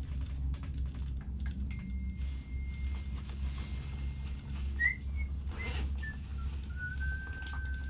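Steady low hum of a ski lift cabin in motion, with thin high whistling tones over it. One tone holds steady for about four seconds, and shorter notes step lower in pitch near the end.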